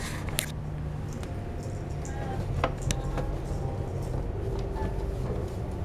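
Steady low room hum with faint background voices and a few light clicks and taps.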